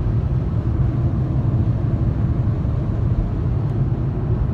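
Steady low rumble of road and engine noise inside a car's cabin while cruising at highway speed, about 65 mph.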